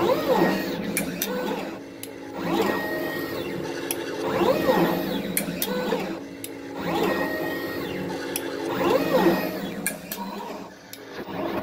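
TVM802A desktop pick-and-place machine at work. The motors whine up and down in pitch each time the head moves, about every two and a half seconds, over a steady hum, with sharp clicks between moves.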